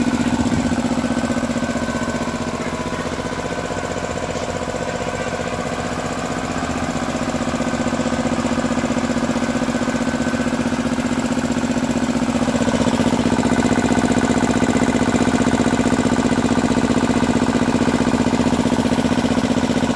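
Piston air compressor with a 100-litre tank and a 3 hp electric motor running steadily under load. It dips slightly a couple of seconds in, then grows a little louder from about seven seconds in.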